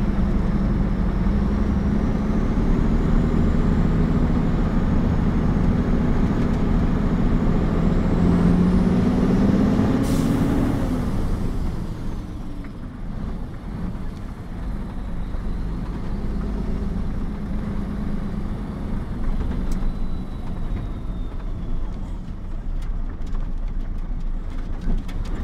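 Mercedes-Benz mixer truck's diesel engine pulling under load, heard from the cab, its note climbing steadily for about ten seconds. A short hiss follows, the engine note falls away, and quieter running and road noise continue.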